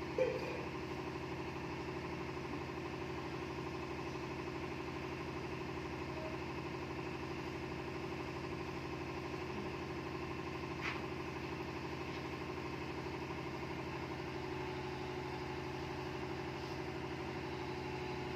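Steady mechanical hum of a running motor, with a brief sound right at the start and a faint click about eleven seconds in.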